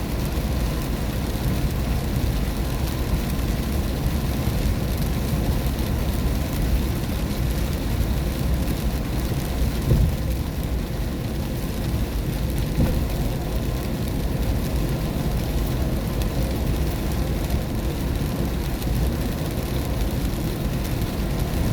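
A car driving on a wet road in the rain: a steady low rumble of road and tyre noise under an even hiss of rain and spray, with one brief bump about ten seconds in.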